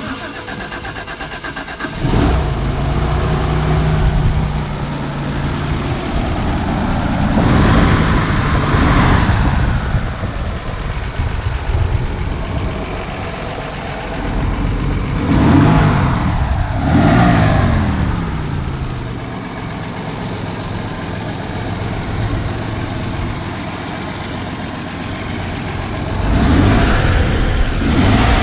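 The 3.9-litre overhead-valve inline-six of a 1973 Toyota Land Cruiser FJ40 running. It is revved briefly several times, the pitch rising and falling back to idle each time.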